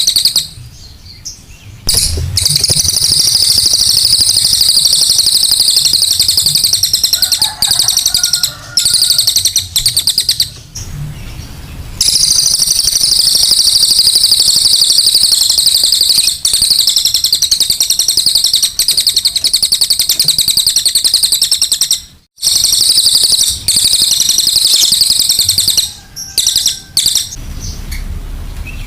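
Cililin songbird singing a long, fast, high-pitched chattering run of notes, broken by a few short pauses, in full song.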